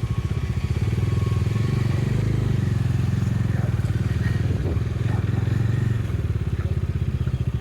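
Motorcycle engine running at a steady, even pace.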